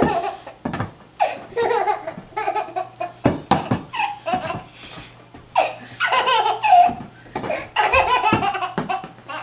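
A baby laughing in a string of short bouts.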